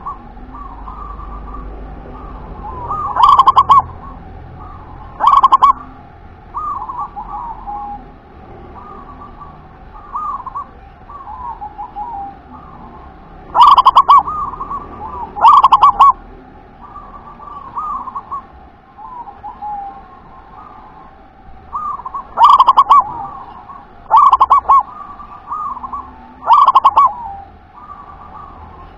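Zebra dove (perkutut) cooing its rolling, stuttering song. Seven very loud coo phrases come in twos and threes, each short enough to hit full scale, and softer coos keep going between them.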